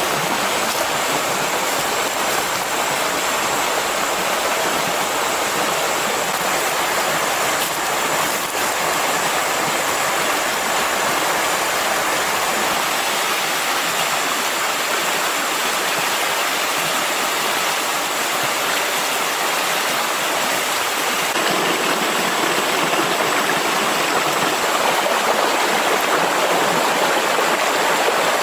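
Stream water rushing over rocks: a steady, even rush that grows a little louder about three quarters of the way in.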